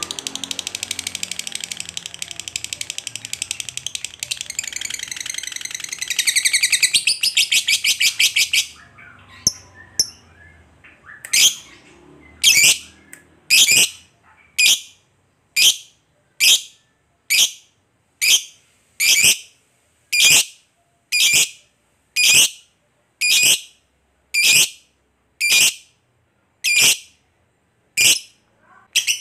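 Lovebird giving a long, rapid chattering trill ("ngekek panjang") that runs about eight or nine seconds. After a short pause come single sharp calls at an even pace of about one a second.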